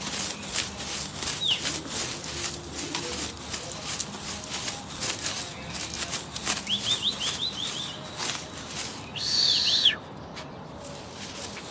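Pigeons' wings flapping and clapping in a run of sharp claps, with short high bird chirps in the second half.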